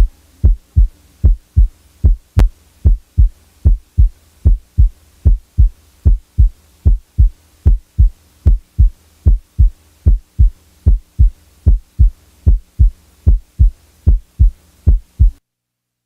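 Heart heard through a stethoscope: the lub-dub of the first and second heart sounds repeating steadily at a little over one beat a second, over a faint low hum. With the mid-systolic click and the late systolic murmur of mitral valve prolapse taken out, these are the plain heart sounds alone. The beat stops shortly before the end.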